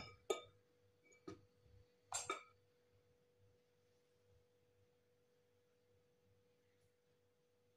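Near silence with a faint steady tone throughout, and a few brief soft knocks in the first two and a half seconds as a silicone spatula scrapes cheesecake batter around a glass mixing bowl.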